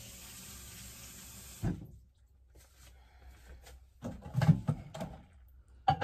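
Kitchen tap running for about two seconds, then shut off with a thump. A few clattering knocks follow a couple of seconds later.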